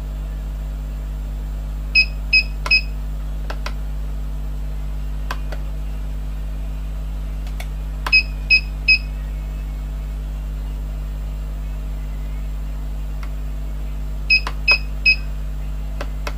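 An electronic beeper sounds three short, identical beeps, and the triple beep repeats three times about six seconds apart. A steady low electrical hum runs underneath.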